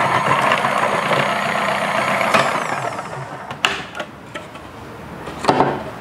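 Philips HR7776 food processor's 1300-watt motor running with the slicing disc cutting onions, a steady whine with rattle. It is switched off a little over two seconds in and its whine falls as the motor winds down, followed by a few plastic clicks and knocks as the lid is taken off.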